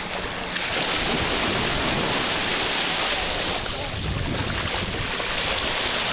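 Wind blowing across the microphone: a steady loud rush with a low buffeting rumble.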